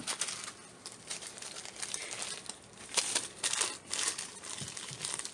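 Small plastic bead packets crinkling and rustling as they are handled, in a run of irregular crackles with a few louder ones about three and four seconds in.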